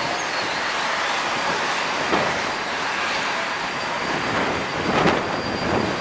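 Steady rush of jet aircraft engine noise on an airport apron, with a thin high whine running through it and a few short knocks about two seconds in, at five seconds and just before six.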